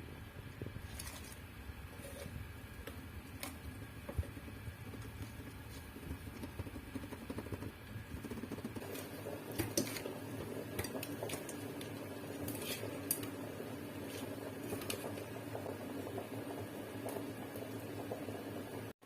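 Shrimp cooking in a pan with a low, steady sizzling and bubbling that grows fuller about halfway through, with scattered clinks of a utensil against the pan.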